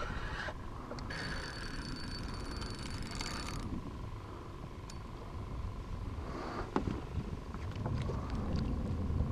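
Spinning reel's drag buzzing as the hooked stingray pulls line off, from about a second in until nearly four seconds in. A few sharp knocks follow near seven seconds.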